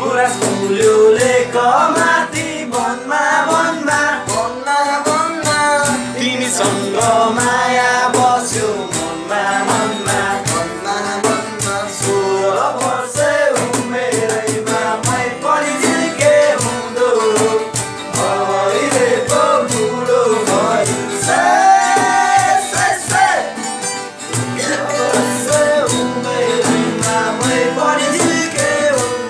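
A man singing a melodic song to steadily strummed acoustic guitar.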